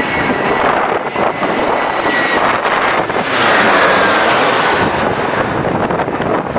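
Airliner passing close on its landing approach: engine noise swells to a peak about halfway through, with a faint whine that slowly drops in pitch.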